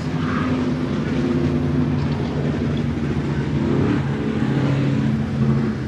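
Race car engines running out on the track, a steady drone of several pitches that shifts up and down every second or so.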